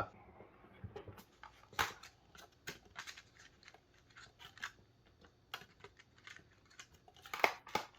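Irregular light clicks and scrapes of small hand tools working at a mouse's soldered button switch on its circuit board, as the switch is worked at but won't come free.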